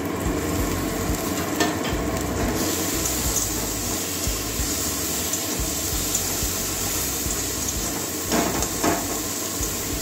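Dried shrimp sizzling as they fry in spiced onion masala in a steel kadai, stirred by a steel spatula scraping the pan. The sizzle grows louder a couple of seconds in, and there are two sharper scrapes near the end.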